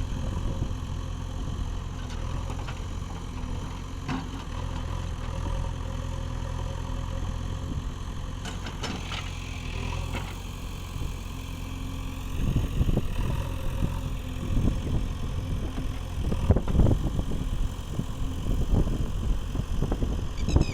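JCB 3DX backhoe loader's diesel engine running steadily, getting louder and more uneven about two-thirds of the way through, with a few short knocks.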